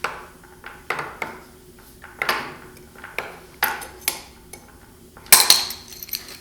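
Metal tools and gearbox parts clinking and knocking together as they are handled: a string of separate sharp clanks with a short ring, the loudest about five seconds in.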